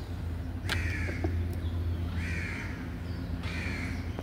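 A crow cawing three times, one call about every second and a half, over a steady low hum.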